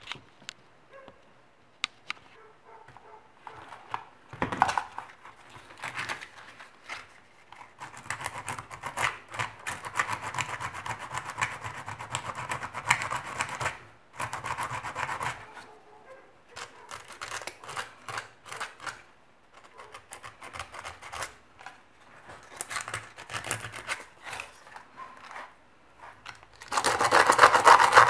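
Hand-sanding the curved metal contact face of a homemade rain sensor with sandpaper, to level and polish it. Scattered handling clicks come first, then runs of rubbing strokes with pauses; near the end the rubbing becomes much louder.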